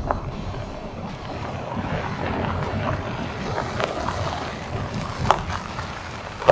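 Wind buffeting the microphone as a steady low rumble, with a few sharp clicks over it.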